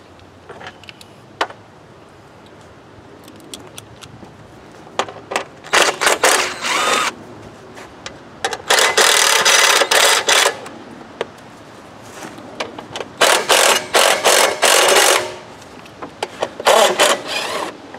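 Cordless drill-driver with a socket on an extension running in four short bursts of a second or two each, backing out the engine shroud's screws. There are small handling clicks before and between the bursts.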